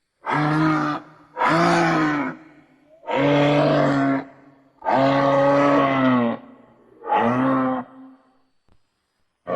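Moose calling: five drawn-out, low, moaning calls of about a second each, with short pauses between them; the fourth is the longest and the last is the shortest.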